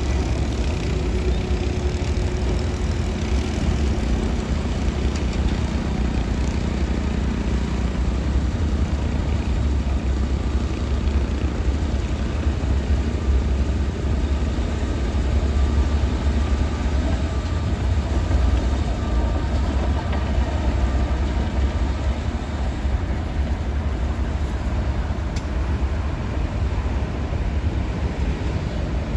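Heavy diesel engine of a Shantui DH17-C2 crawler bulldozer running steadily, a deep, even rumble with no pauses.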